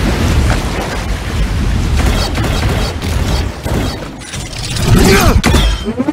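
Action-film sound effects: a deep, continuous rumble with booms and crashes. Swooping tones glide up and down about five seconds in.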